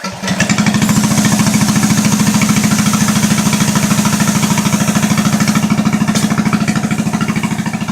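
7 hp single-cylinder small engine on a homemade trike coming to life and settling into a steady, evenly pulsing idle.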